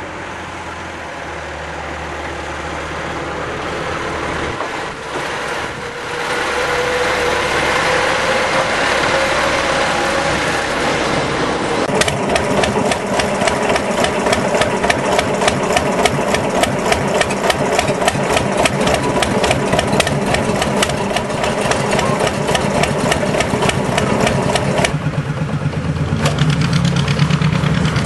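Small two-foot-gauge industrial locomotive's engine running. Its pitch rises over the first several seconds, and from about twelve seconds in it settles into a fast, even beat.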